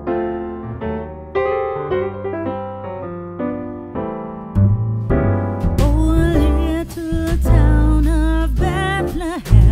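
Background music: electric piano chords, joined about four and a half seconds in by a heavy bass beat and a singing voice.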